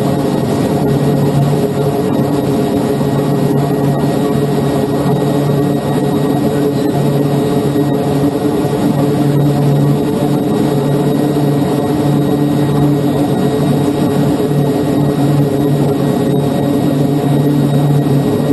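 C-2A Greyhound's twin Allison T56 turboprop engines and propellers running steadily while the aircraft taxis on deck, heard from inside the cockpit. It is a loud, even drone with a low propeller hum that slowly swells and fades every few seconds.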